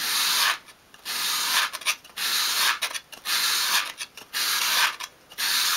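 Small thin wooden piece swept by hand across sandpaper laid flat on a work surface, six sanding strokes about a second apart, rounding off the piece's edge.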